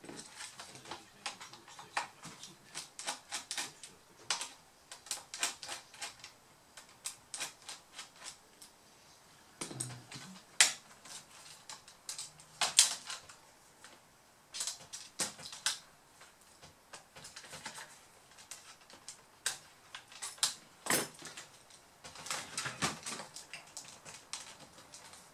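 Small screwdriver undoing the display hinge screws of a Samsung R710 laptop, making runs of quick, light, irregular clicks and ticks on metal and plastic, with a few sharper clicks and a dull knock about ten seconds in.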